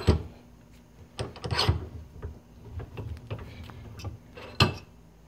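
Zip ties being worked and pulled tight around a small-engine valve spring held in a bench vise: a short ratcheting rasp between sharp metal clicks at the start and near the end.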